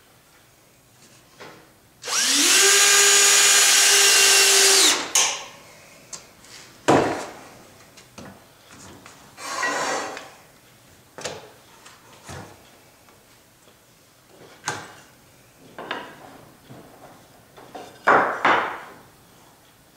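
Cordless drill/driver driving a screw into a glued wooden frame joint. The motor spins up and runs steadily for about three seconds, then stops. Several short knocks and scrapes follow as the clamps and wood pieces are handled.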